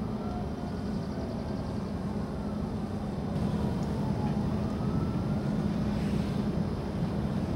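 A siren wailing in the distance with slow rising and falling pitch, and a dog howling along with it from about halfway through, over a steady low hum.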